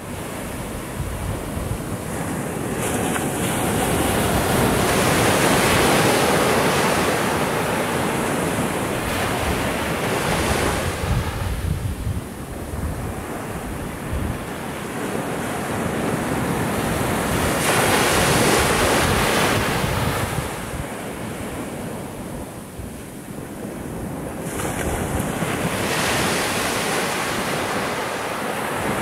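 Small Atlantic surf breaking and washing up a sandy beach, a continuous wash that swells and ebbs every several seconds as each wave comes in. Wind buffets the microphone underneath with a low rumble.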